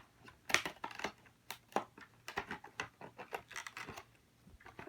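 Irregular light clicks and taps of plastic blister packaging and small die-cast toy cars being handled while a toy car pack is opened.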